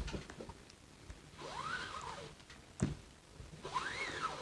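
Paracord being pulled through the wraps on a wooden monkey-fist jig: two long zipping slides of the cord, each rising and then falling in pitch. There is a sharp tap a little before the second slide.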